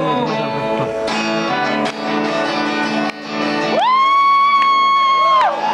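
Guitar strumming the closing chords of a live song. From about four seconds in, a single high-pitched voice cry is held for nearly two seconds over the chords, sliding up into it and down out of it.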